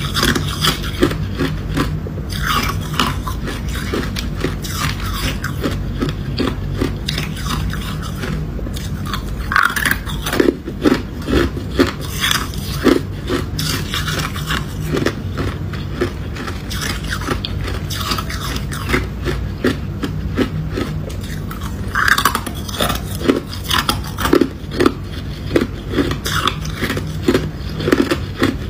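Ice being crunched and chewed: a steady run of sharp, irregular cracks as small pieces of crushed ice are bitten and ground between the teeth.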